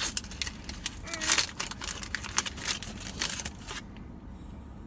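Foil booster-pack wrapper crinkling and tearing as it is opened by hand, a quick run of crinkly rustles that stops about a second before the end.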